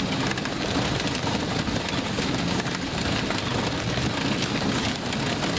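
Dog treadmill running under a trotting bulldog: a steady, dense mechanical noise with faint quick ticks of footfalls on the deck.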